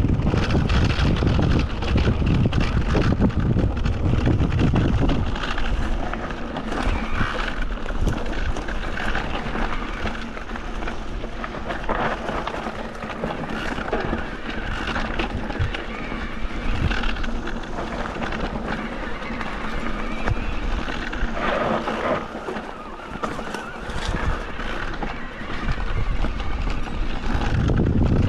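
Wind buffeting an action camera's microphone during a mountain bike ride, with the tyres rolling over rough trail ground and the bike knocking and rattling. The wind rumble is heaviest in the first five seconds and again near the end.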